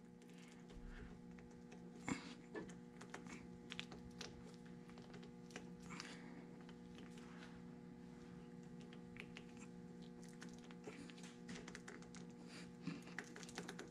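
Faint, irregular small clicks and scrapes of a -10 AN hose-end socket being twisted by hand onto a steel-braided oil line, over a steady low hum.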